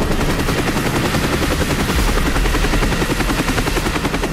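Helicopter sound effect: a steady, rapid beating of the rotor blades over an engine drone.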